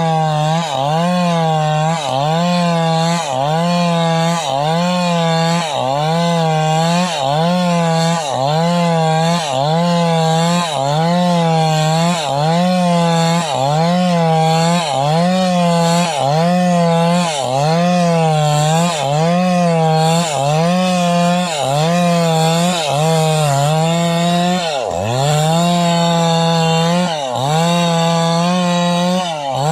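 Stihl MS381 two-stroke chainsaw cutting planks from timber, its engine pitch dipping under load and picking back up about once a second. Two deeper dips come a little before the end.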